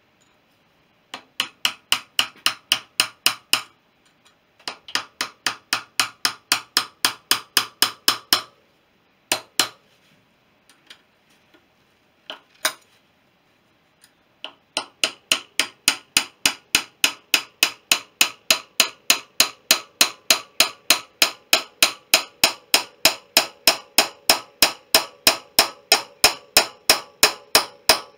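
Hammer blows on a long steel drift passed through a BSA B31 motorcycle's front wheel hub, driving out the wheel bearing. Quick runs of sharp metallic strikes, about three a second, broken by pauses and a few single taps, then one long unbroken run from about halfway with a ringing note under it.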